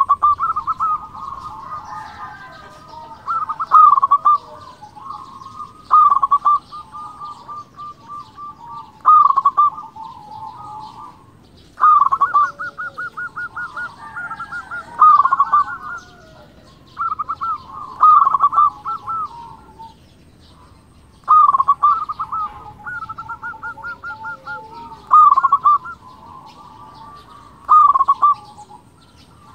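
Zebra dove (perkutut) singing: a phrase of rapid staccato cooing notes, repeated about every three seconds, roughly ten times.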